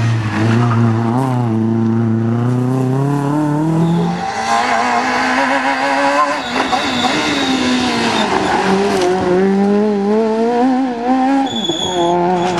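Rally car engines passing on a tarmac stage: the first comes off the revs under braking, then picks up again and accelerates away, and about 4 s in a second rally car is heard downshifting and revving hard out of a corner. The engine pitch falls and rises several times.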